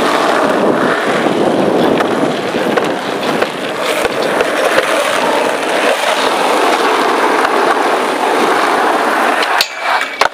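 Skateboard wheels rolling over rough asphalt: a steady gritty rumble with small clicks scattered through it. Near the end the rolling noise drops and a sharp clack of the board is heard.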